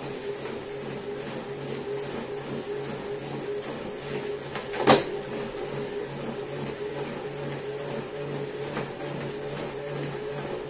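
Tacx Neo 2T direct-drive smart trainer running under a pedalling rider: a steady electric hum with a pulsing low buzz. A single sharp click about five seconds in.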